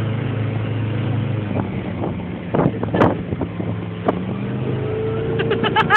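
Speedboat engine running under rushing wind and water noise. The engine's steady hum gives way to the rushing about two seconds in, with a few sharp knocks in the middle.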